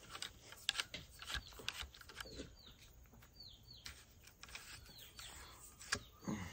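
Wooden rod worked up and down inside a .36 caliber flintlock rifle barrel, giving scattered scrapes and clicks as it tries to hook out a cleaning patch stuck in the bore. Small birds chirp with short falling calls.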